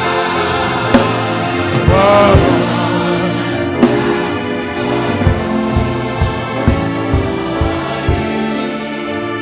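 Gospel hymn music. Voices sing with vibrato over sustained instrumental accompaniment and a soft, regular drum beat.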